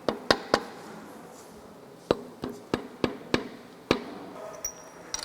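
Sharp metal clinks and knocks, about ten, irregularly spaced, as a main bearing cap and its bolts are fitted over the crankshaft on the engine block.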